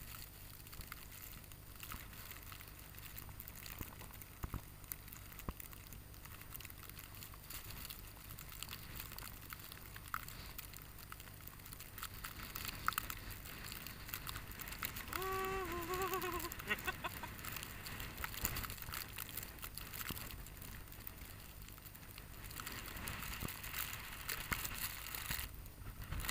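Footsteps crunching through fresh snow while walking, with small crackling clicks throughout. A short wavering pitched sound comes about two thirds of the way in.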